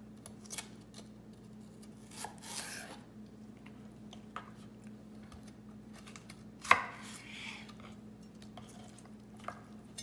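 Santoku knife slicing celery stalks lengthwise on a wooden cutting board: scattered soft cuts and scrapes, with one sharp knock of the blade on the board about two-thirds of the way through. A faint steady low hum runs beneath.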